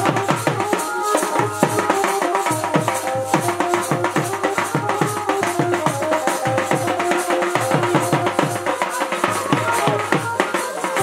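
Dance music: a barrel drum beats a quick, steady rhythm while a melodic instrument plays held notes over it.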